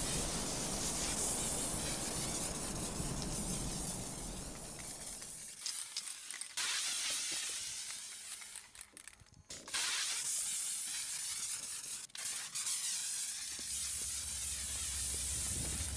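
Pierced aerosol spray paint cans hissing as they empty in long uncontrolled jets, broken by several abrupt cuts.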